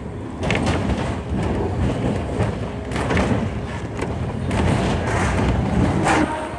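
Hong Kong double-decker tram running along its street track, heard from inside the upper deck: a steady low rumble with knocks and rattles from the wheels and body every few seconds.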